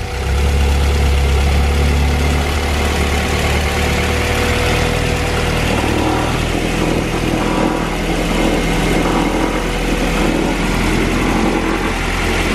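A freshly installed JDM B18C Type R 1.8-litre DOHC VTEC four-cylinder engine idling through its header and exhaust on its very first start. Its note settles and changes slightly about five seconds in.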